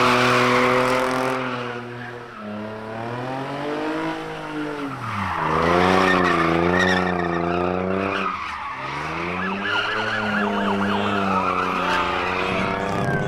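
A car drifting in circles: its engine revs up and down under the throttle, falling away sharply twice, while its rear tyres screech continuously.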